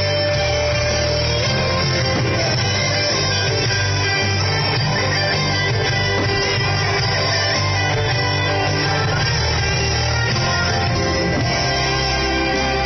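Rock-style music with guitar playing steadily and loudly.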